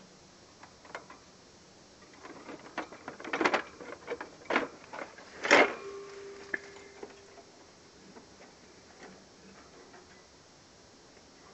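Hamster clambering about its plastic cage: a run of light clicks, scrapes and rattles, busiest in the middle, with a sharper knock about five and a half seconds in that leaves a short ringing tone, then a few scattered ticks.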